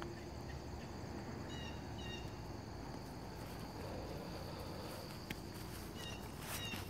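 Outdoor ambience: a steady high insect buzz, with two short clusters of bird chirps, over a faint low rumble.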